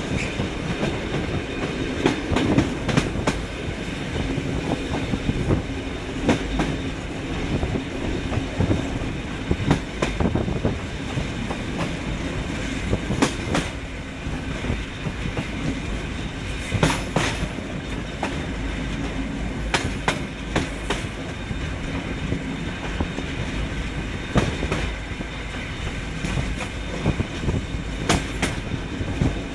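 EN57 electric multiple unit running at speed: a steady rumble with a faint low hum, and wheels clacking over rail joints at irregular intervals.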